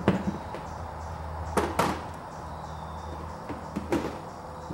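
Scattered knocks and clunks on the ribbed aluminium floor of a motorcycle trailer while a wheel chock is being bolted down. One knock comes at the start, a louder double knock about a second and a half in, and fainter ones later, all over a steady low hum.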